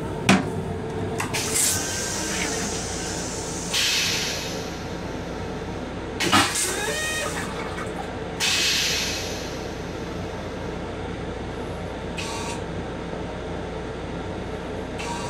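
Steady hum of an M7 railcar heard inside its small restroom, with a sharp clack early on as the toilet seat is lifted. A further knock about six seconds in and several short hisses follow.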